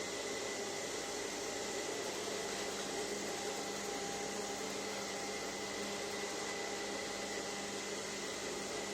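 MILIFE X5 robot vacuum cleaner running, a steady motor hum and whine that does not change.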